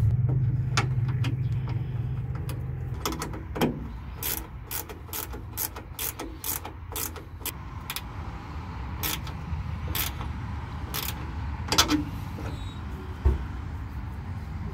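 Socket ratchet clicking in uneven runs of strokes as a nut and bolt are tightened on a rubber exhaust hanger, with a wrench holding the other side. A low rumble fades out over the first three seconds.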